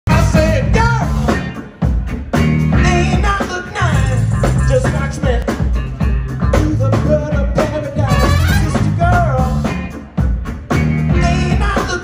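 Live band playing, with a horn section of baritone saxophone, a second saxophone and trumpet over electric bass, drums and guitar. The music drops out briefly twice, about two seconds in and again near ten seconds.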